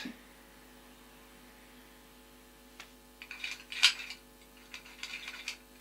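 Metallic clicks and clinks from handling and opening the valve of an antique brass pressure soldering iron, starting about three seconds in with the loudest clink near four seconds, over a steady low electrical hum.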